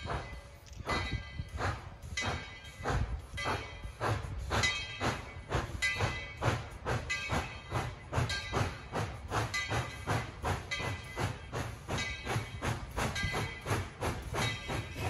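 Steam locomotive working under steam: a steady, even run of exhaust chuffs, about two to three a second, over a low rumble.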